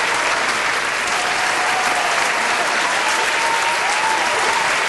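Audience applause, a steady dense clapping at the end of a song.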